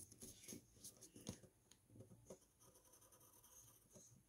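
Near silence, with a few faint scattered ticks and scratches from a pencil and folded paper being handled.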